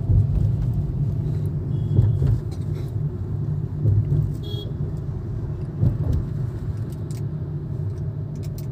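Hyundai Grand i10 Nios heard from inside the cabin while cruising in fourth gear with the accelerator eased off on a gentle downhill: a steady low engine and road rumble with a few soft thumps.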